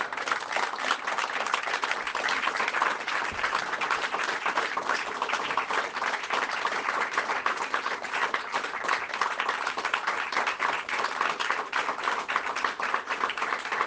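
A group of people applauding, many hands clapping in a dense, steady patter.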